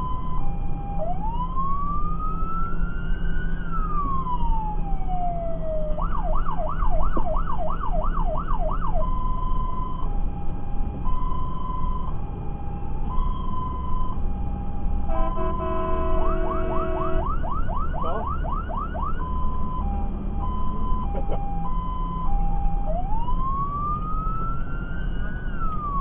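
Fire engine's electronic siren switching between patterns over the steady rumble of the engine and road. It starts with an alternating two-tone hi-lo, then gives one slow wail that rises and falls, then a fast yelp of about three sweeps a second, then returns to hi-lo. Midway there is a brief horn-like multi-tone blast with a second fast yelp, and near the end a wail rises again.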